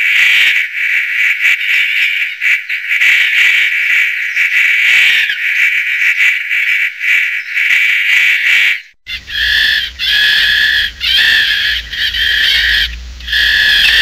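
Beaver hissing: a dense, rapidly fluttering high hiss for about nine seconds. It then breaks off and gives way to long, steady-pitched high calls, three of them with short pauses between, over a low hum.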